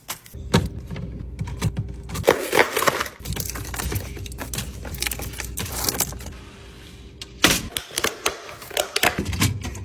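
Drink bottles and cans clinking and knocking against each other and the shelves as they are stacked into a drinks fridge, with some rustling of packaging in between.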